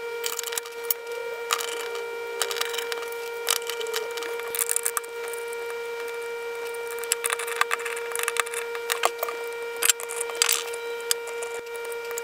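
Scattered clicks and taps of hands handling the plastic head-unit screen housing, brackets and small bolts during reassembly, over a steady high-pitched hum.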